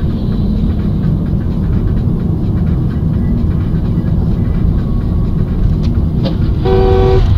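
Steady rumble of a car's engine and tyres heard from inside the cabin while driving. There is a short knock about six seconds in, and then a two-tone car horn sounds for about half a second near the end.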